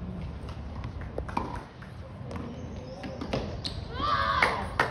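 Tennis balls bouncing on a hard court: scattered sharp knocks, the loudest near the end. A brief voice calls out shortly before that last knock.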